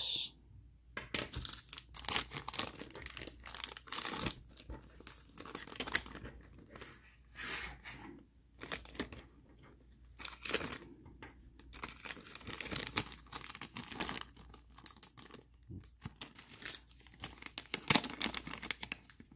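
Clear plastic bags crinkling and rustling as they are handled and opened, in irregular spurts with short pauses between.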